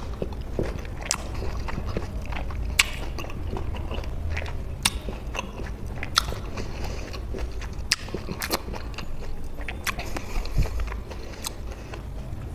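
Close-miked chewing of juicy, chili-salted citrus fruit, with sharp wet mouth clicks and smacks about once a second.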